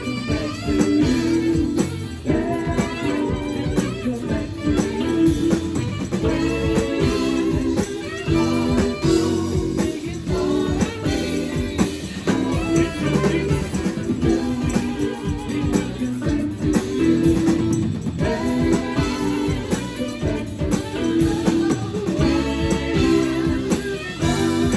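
Live band playing a soft-rock song, with a singer and guitar over a steady bass and drum beat.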